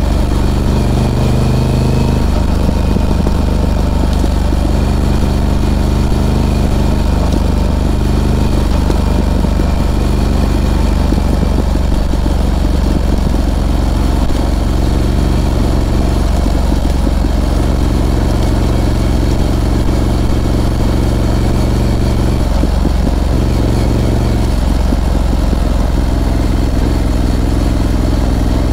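Harley-Davidson Pan America's Revolution Max 1250 V-twin running as the motorcycle is ridden, its note shifting up and down in steps with the throttle.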